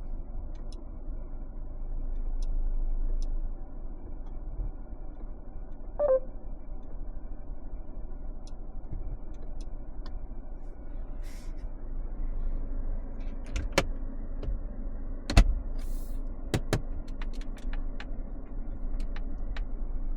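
A Mercedes-Benz C 200 being driven: a steady low rumble of the car on the road, swelling briefly a couple of seconds in. Irregular sharp clicks and knocks come in the second half, the loudest about fifteen seconds in.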